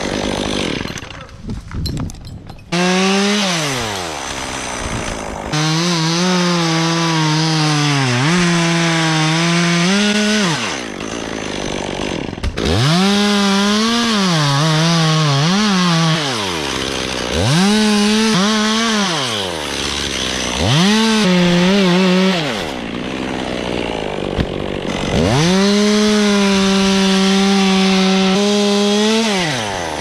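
Two-stroke chainsaw cutting wood, revved to full throttle in about six runs, its pitch sagging and recovering under load during the cuts and falling back toward idle between them.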